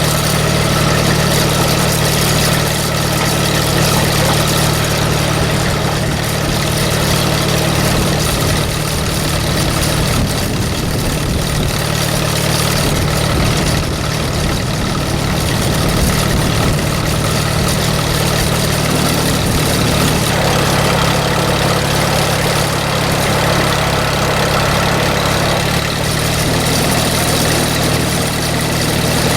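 Allis-Chalmers WD45 tractor engine idling steadily.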